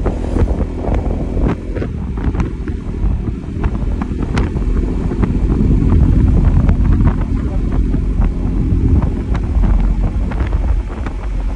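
Wind buffeting the microphone over the steady drone of a motorcycle riding at about 50 km/h, engine and road noise, with scattered short ticks.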